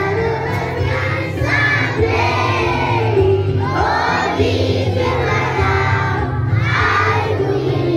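A large group of young children singing a morning prayer together in unison.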